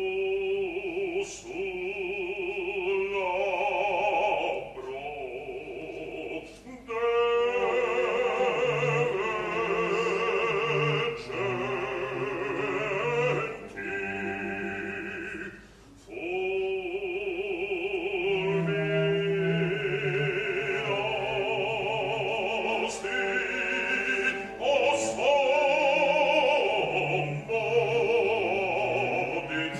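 Operatic bass voice singing with a wide vibrato over orchestral accompaniment, with brief breaks between phrases about a quarter of the way in and again about halfway.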